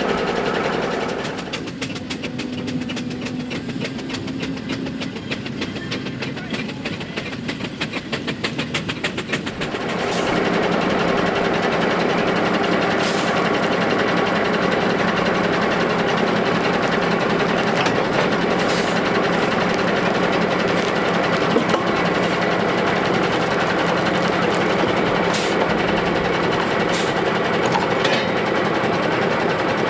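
Steam traction engine running, with a fast, even beat of several strokes a second. About ten seconds in it turns louder and steadier, with a constant low hum.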